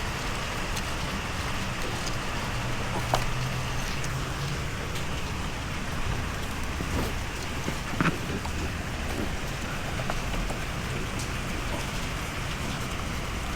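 Steady hissing background noise with a few sharp clicks, the loudest about three and eight seconds in.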